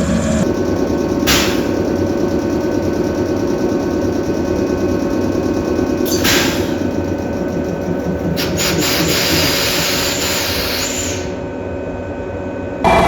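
A train's electric air compressor running steadily, with two short, sharp 'shupan' bursts of air about a second in and about six seconds in. These are the drain valve blowing out the moisture taken in with the compressed air. A longer hiss of air follows from about eight seconds in.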